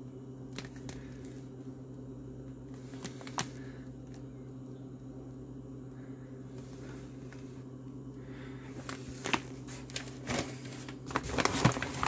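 MRE meal pouches crinkling and knocking as they are handled, with a few faint ticks for most of the time and a busier stretch of rustling near the end as the next pouch is pulled out of a cardboard box. A steady low hum runs underneath.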